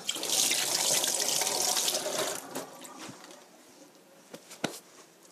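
Water running from a tap for about two and a half seconds, then fading away, followed by a few light knocks.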